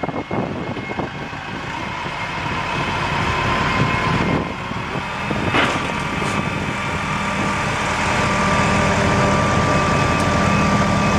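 Heavy machine engine running steadily and growing louder, with a few sharp knocks near the start and a couple more about five and a half seconds in.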